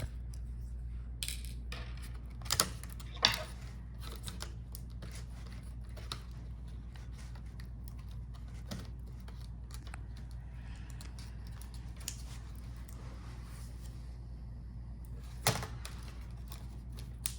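Scattered sharp clicks and taps of small laptop parts, screws and a screwdriver being handled on a bench, over a steady low hum. The loudest taps come about two and a half and three seconds in, and again near the end.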